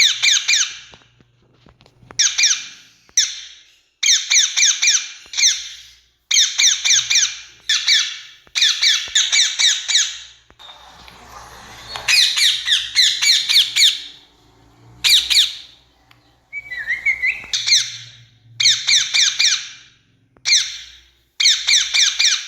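Rose-ringed parakeets calling with shrill, screeching notes in rapid runs. About a dozen loud bouts follow one another with short gaps.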